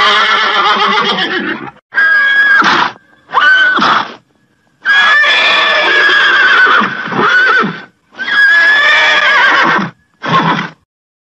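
Horses whinnying: a series of about six loud neighs, each up to about two seconds long, broken by short silences.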